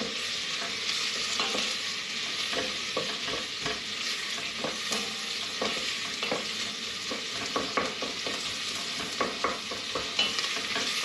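Chopped onions sizzling steadily in hot oil in a stainless steel pot, frying on a moderate heat to soften. A wooden spoon stirs them, with irregular light scrapes and knocks against the pot.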